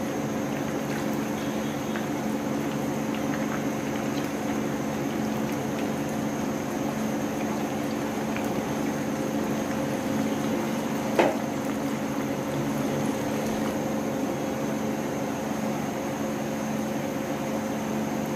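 Hot oil sizzling in a frying pan as breaded chicken cutlets are laid in and shallow-fried, over a steady low hum. A single sharp knock comes about eleven seconds in.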